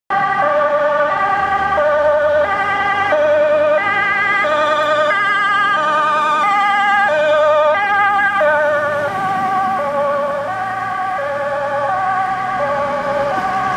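A Dutch fire engine's two-tone siren alternates between a high and a low note, each note with a fast warble, as the truck approaches and passes. Both notes drop in pitch about eight and a half seconds in as it goes by, and the siren grows slightly quieter as it drives away.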